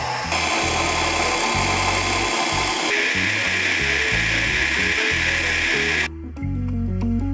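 A handheld power tool running steadily, its pitch shifting twice, then stopping about six seconds in, over background music with a bass line.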